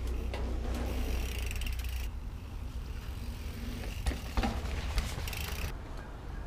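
Mountain bike riding past on a dirt trail: tyres crunching over the dirt with the freewheel hub ticking as it coasts, and a few sharp knocks about four to five seconds in as the bike comes off a small wooden ramp. Wind rumbles on the microphone for the first two seconds.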